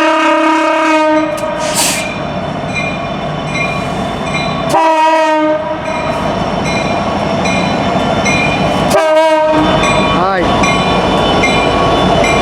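CN freight locomotive's air horn sounding three blasts: a long one ending about a second in, another about five seconds in, and a short one about nine seconds in. Under it runs the low rumble of the passing train, with a grade-crossing bell ringing steadily.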